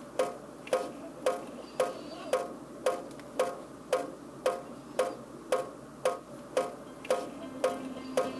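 Kitchen faucet dripping into the sink, a steady plink about twice a second, each drop with a short ringing note.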